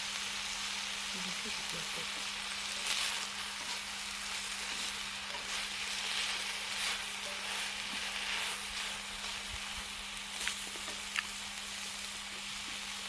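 Meat sizzling and crackling as it grills, a steady hiss with a couple of sharp pops near the end. A low steady hum runs under it.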